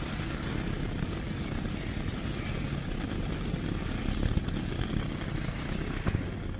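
Steady rushing noise of a lab gas burner's flame, with a faint click about six seconds in.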